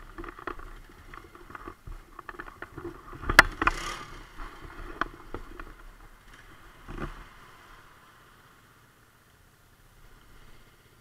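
Close clicks, knocks and scrapes on the helmet camera's microphone, such as come from handling it or moving the head. The loudest knock comes about three and a half seconds in and another near seven seconds, and after that it goes quiet.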